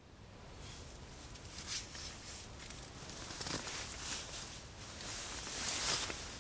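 Soft rustling and shuffling, a series of scuffing noises that grow louder near the end.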